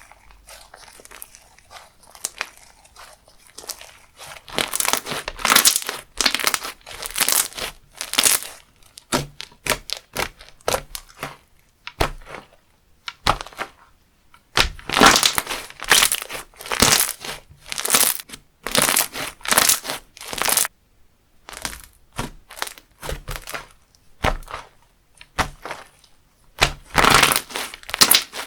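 Crunchy textured slime being squeezed and pressed by hand, crackling in repeated bursts after a quieter start, with brief pauses between squeezes.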